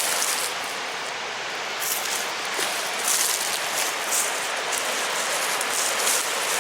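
Wind rushing through the trees, a steady hiss with brief stronger gusts every second or so.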